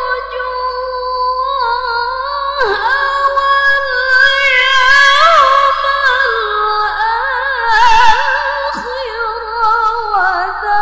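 A woman reciting the Qur'an in the melodic tilawah style: long, high held notes with vibrato and ornamented turns, sung with no pause.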